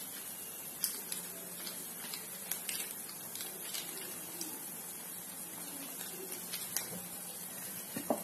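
Thick green chilli paste cooking gently in a frying pan over very low heat: a faint hiss with a few scattered small pops and ticks.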